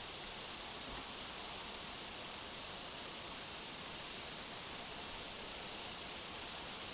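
Steady, even outdoor hiss with no distinct events, such as wind in the trees or light rain.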